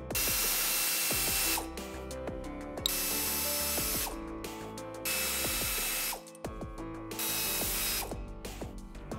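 Pneumatic air ratchet spinning out the water pump pulley bolts in four bursts of about a second each, with background music underneath.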